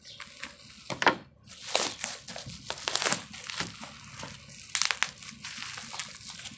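Plastic packaging crinkling and tearing as it is pulled off a cardboard box by hand, in irregular crackling bursts.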